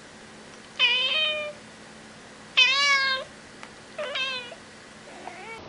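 Domestic cat meowing three times, each meow about half a second long and spaced about a second and a half apart, followed by a fainter short meow near the end.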